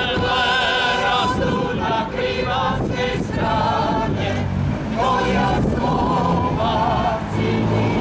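Small mixed choir of men's and women's voices singing a hymnic song together in sustained, wavering notes.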